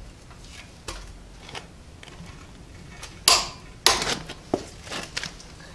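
Hand tools on the Honda Civic's flywheel bolts: scattered metal clinks and knocks, loudest a little past the middle, as the bolts are tightened.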